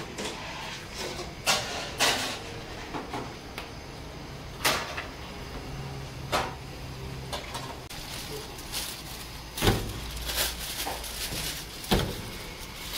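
Scattered sharp knocks and clatters, about six, of things being handled and set down on steel, over a low steady hum.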